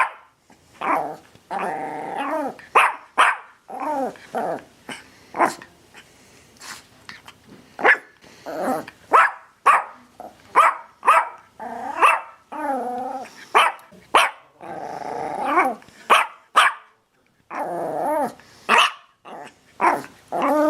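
An angry dog barking and growling: short, sharp barks come irregularly throughout, broken by longer snarling growls lasting a second or more.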